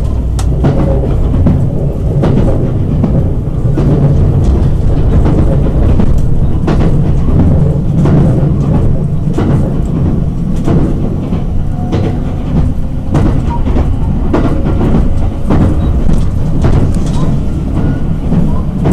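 Inside a 287 series electric express train running at speed: a steady low rumble of wheels on rail, with irregular clicks and knocks from the track and joints.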